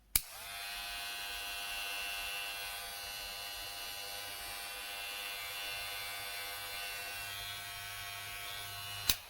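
GLAKER cordless hair clipper switched on with a click, its motor running with a steady, reasonably quiet buzz for about nine seconds, then switched off with a second click.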